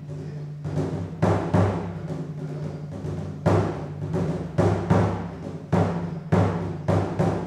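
Music with heavy drum strikes over a held low drone: about a dozen loud hits, some close together in pairs, the others up to two seconds apart.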